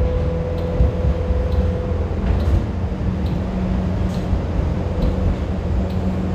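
Kawasaki-built light rail train running, heard from inside the trailer car: a steady low rumble of wheels and running gear. A steady high tone fades out about two seconds in, and a lower hum comes in after it, with faint scattered clicks.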